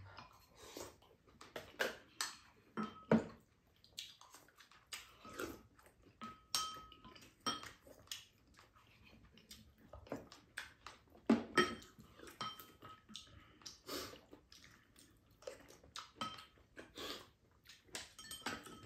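Spoons and chopsticks clinking and scraping against ceramic bowls in irregular light clinks, some with a brief ringing tone, over quiet eating noises.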